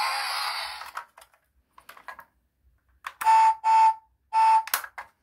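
Sound chip of a 1/24 MSZ Range Rover diecast toy car, playing through its small speaker. A recorded engine rev rises and dies away in the first second. After a few light clicks, three electronic horn beeps sound about three seconds in.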